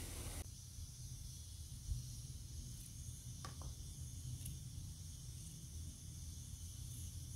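Mushrooms and onions sizzling in a frying pan for a moment, cut off about half a second in. A quiet background of low rumble and faint steady hiss follows.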